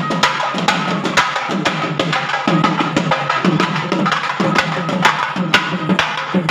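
Procession drumming: sharp stick strokes on a cylindrical drum, several a second in a steady rhythm, with deeper drum tones beneath.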